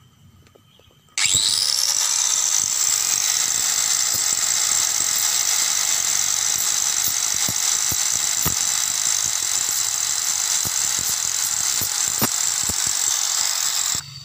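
Electric angle grinder switched on about a second in, rising in pitch as it spins up, then running steadily with a high hiss and scattered ticks as the tip of a bicycle-spoke scraping tool is ground sharp on it; it cuts off suddenly just before the end.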